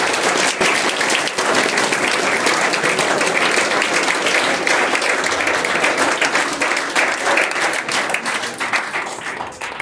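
Audience applauding: a dense patter of many hands clapping at once, thinning and fading toward the end.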